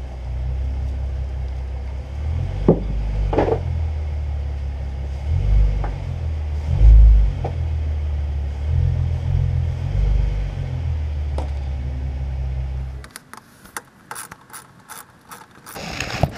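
2015 Mustang's 3.7-litre V6 running low with its front wheels on drive-on ramps, with a few light clicks and a couple of deeper surges. The rumble cuts off suddenly near the end, leaving only faint clicks.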